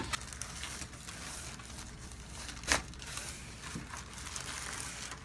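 Faint rustling and crinkling of movement on a chiropractic treatment table, with one sharp crack about two and a half seconds in.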